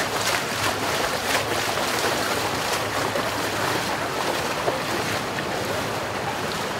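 Steady rushing noise of wind and flowing floodwater, with a few faint splashes from people wading through it.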